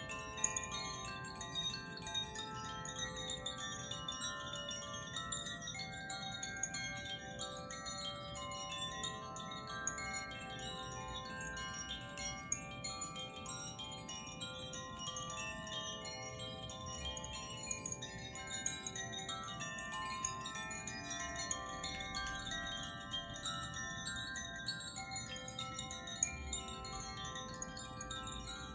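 Hand-held tuned chimes rung continuously, many clear, sustained tones struck again and again so they overlap in a dense, shimmering wash of overtones.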